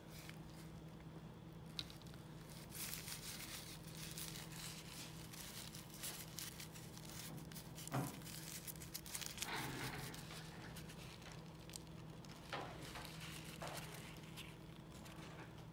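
Faint crinkling and rustling of a paper towel being pressed and dabbed onto wet watercolour paper to lift paint out, with a light knock about eight seconds in, over a steady low hum.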